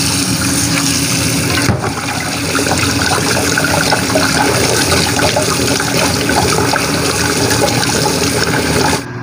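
Kitchen tap running hard onto pickled mustard greens being rinsed and squeezed by hand, water splashing into a stainless steel pot and sink. The sound cuts off suddenly near the end.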